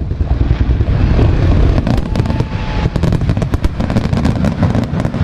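Aerial fireworks barrage: overlapping shell bursts make a continuous low rumble of booms, with dense crackling from about two seconds in.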